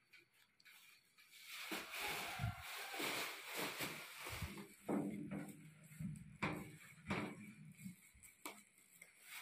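Handling noise from an electric toaster oven: irregular rustling and several light knocks and clatters of its metal and glass parts being moved, the last knock coming at the glass door near the end.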